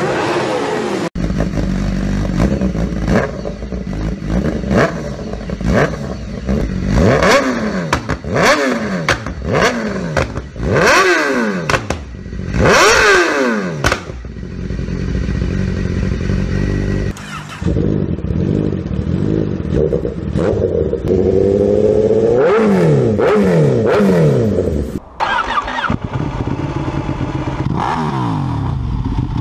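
Motorcycle engine revved again and again, each rev swooping up and falling back in pitch.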